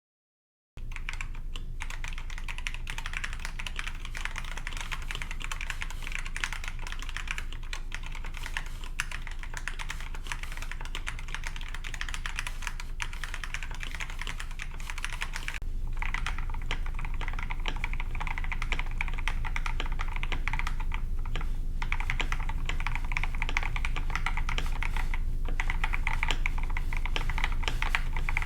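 Steady fast typing on a mechanical keyboard with linear Gateron Yellow switches in a KBD67 Lite, PC plate and foam-filled case: first standard Gateron Yellows, then, after a short pause about 15 seconds in, Gateron Yellow Pros, which sound a little louder.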